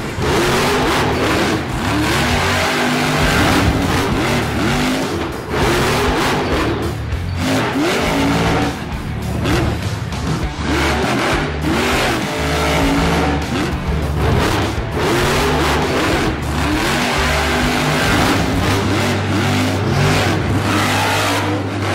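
Background music mixed with a Losi LMT radio-controlled monster truck's brushless electric motor whining up and down in pitch as it accelerates, jumps and slides through loose dirt.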